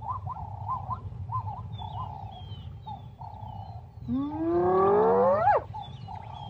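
A spotted hyena gives one long whoop about four seconds in, rising steeply in pitch for about a second and a half, then cutting off sharply. Before it comes a string of short, higher calls, with faint bird chirps above throughout.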